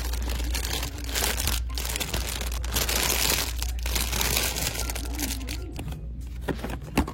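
Crinkling and rustling from close handling, like plastic packaging or the microphone being rubbed, with a sharp knock near the end.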